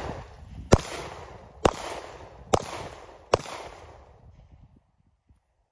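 Four pistol shots fired in quick succession, slightly under a second apart, each followed by a short echo that dies away.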